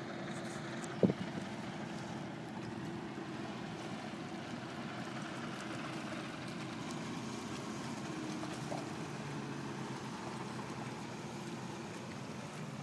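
Steady low hum of a distant engine over light outdoor noise, with one sharp click about a second in.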